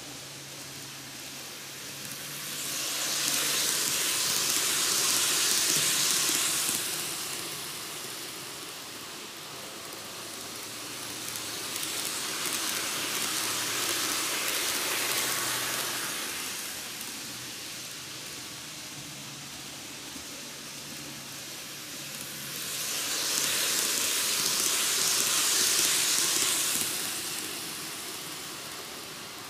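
N gauge model trains running on curved Tomix cant track. The high whir of their wheels and motors swells and fades three times as the trains pass close, over a steady hiss.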